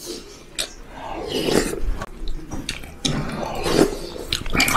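A person slurping spoonfuls of hot beef hangover soup and chewing, loud close-up mouth sounds that come in several irregular bouts.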